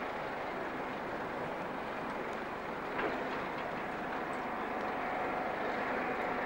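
Steady dockside background noise with a single knock about three seconds in, and a faint steady hum of distant machinery in the second half.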